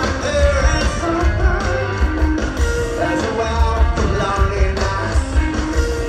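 Loud rock music with guitar over a steady, bass-heavy beat.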